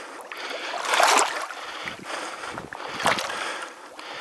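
A person wading through shallow marsh water, the water swishing and sloshing around the legs with each stride, in surges about once a second.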